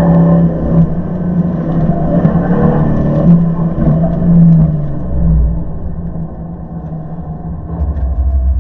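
1999 Dodge Dakota R/T's 5.9-litre V8 pulling under load with a steady note for about five seconds, then falling away, with a low rumble coming in near the end.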